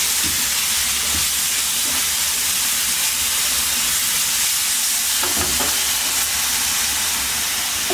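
Raw turmeric and jaggery paste frying in ghee in a pan: a steady sizzle, with a spoon scraping through it a few times.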